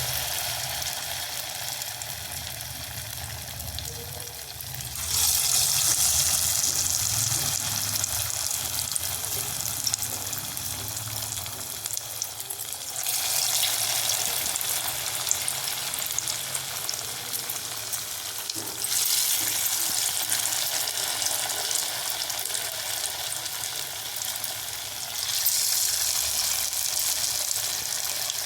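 Hot oil sizzling steadily as cornflour-dipped potato snacks deep-fry, the sizzle jumping abruptly louder four times.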